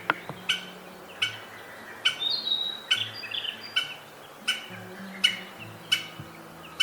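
Wild birds calling: one short sharp call repeated about every half to three-quarters of a second, with a brief higher warbling phrase from another bird about two seconds in.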